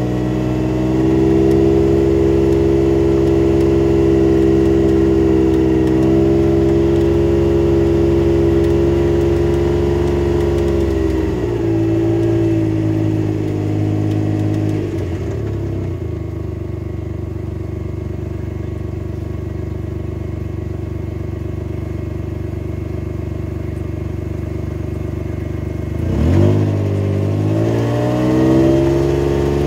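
Vehicle engine running at low speed. Its pitch drops about halfway through as it slows, holds steady for a while, then rises sharply near the end as it speeds up again.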